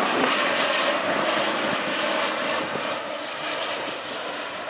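Gulfstream business jet on final approach with gear down, its twin rear-mounted jet engines making a steady rushing noise that slowly grows quieter as it passes.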